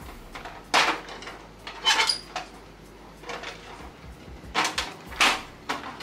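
Toiletry bottles and jars being set down one by one onto a clear tiered organizer: a series of hard clacks and knocks, about six in all, the one about two seconds in with a short ring.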